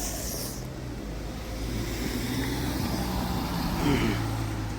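Motor vehicle running with a steady low hum, over background road noise.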